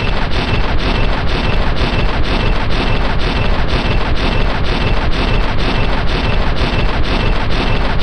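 M2 Browning .50 calibre heavy machine gun firing a sustained burst: sharp reports about three a second over a constant loud roar.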